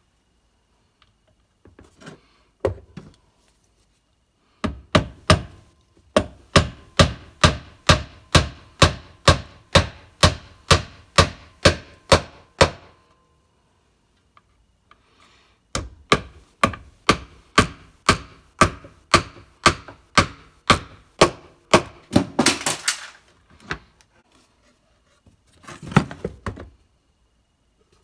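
Claw hammer driving nails into a stained wooden plywood box: two long runs of quick, evenly paced strikes, about two or three a second, with a pause between. Near the end, short scraping sounds of the wood being shifted.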